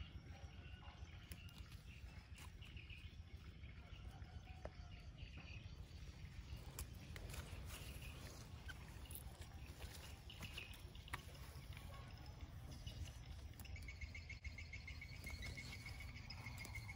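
Faint outdoor ambience: a low steady rumble with scattered soft clicks and rustles, and from about two-thirds of the way in a faint, high, pulsing trill.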